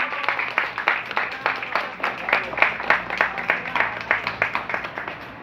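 A small seated audience applauding with dense, irregular hand claps that thin out near the end.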